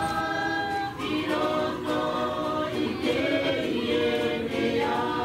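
Background music: a choir singing sustained notes in harmony.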